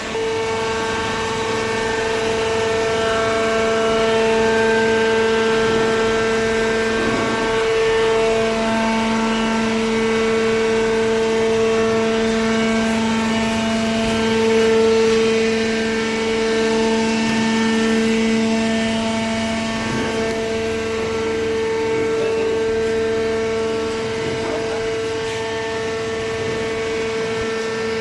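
Hydraulic baling machine running with a loud, steady mechanical hum made of several held tones, the mix of tones shifting slightly partway through.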